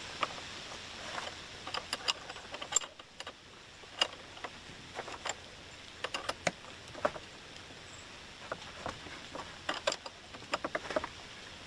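Irregular light metallic clicks and clinks of a wrench working on a hydraulic hose fitting at the base of a hydraulic cylinder, as the line is attached.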